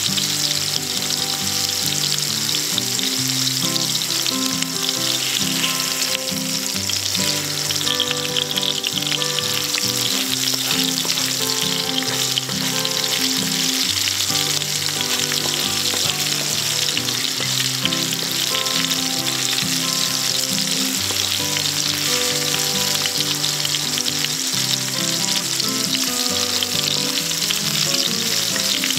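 Mahi mahi fillet sizzling steadily in hot oil in a frying pan while it is turned, with soft background music underneath.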